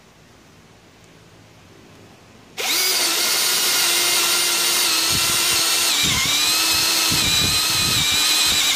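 Cordless brushless drill (Aneerpower BL-5120) starting up about two and a half seconds in and running steadily at full speed, boring a 13 mm bit into oiled steel. Its whine sags briefly under load about six seconds in, with an uneven low rumble as the bit bites into the metal.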